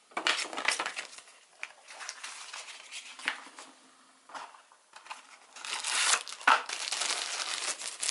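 Paper leaflet and box packaging being handled and folded: rustling and crinkling in irregular bursts, busiest from about five and a half seconds in.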